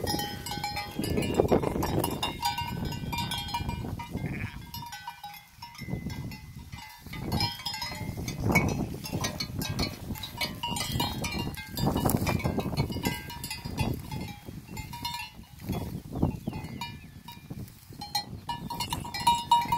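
Sheep bleating now and then, with the bell worn by one of the ewes clinking as the flock moves about.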